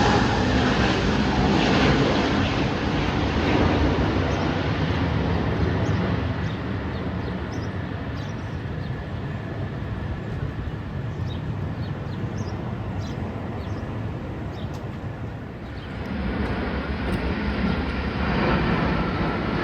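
Jet airliner noise from a plane flying low overhead, fading away over about ten seconds. The noise comes back abruptly a few seconds before the end.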